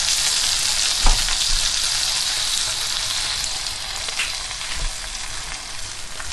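Hot fat and juices sizzling in the roasting pan under a freshly roasted turkey: a steady hiss that slowly fades, with a single knock about a second in.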